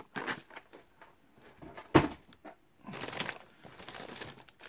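Plastic packaging being handled: rustling and crinkling with light rattles, and one sharp knock about two seconds in.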